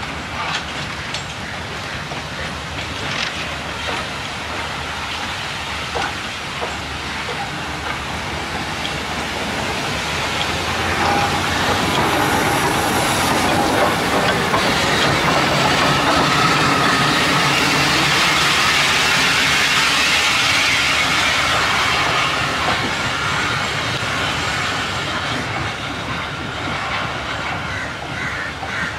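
Sri Lanka Railways Class B2b steam locomotive No. 213 moving slowly through the yard, its wheels clicking over the rail joints and steam hissing from the cylinders. The sound swells as it passes close, about halfway through, then fades.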